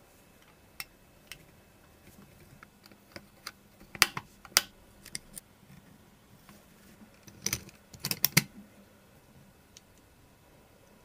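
Small sharp clicks and taps from the plastic and metal parts of a scale-model Lamborghini being handled and fitted. There are scattered single ticks, then louder quick clusters of clicks about four seconds in and again near eight seconds.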